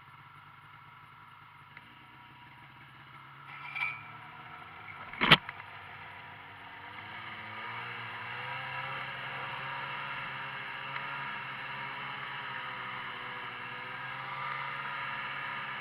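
Snowmobile engine idling quietly, broken by a loud sharp knock about five seconds in. The engine then revs up and keeps running steadily, the sled under way, its pitch wavering with the throttle.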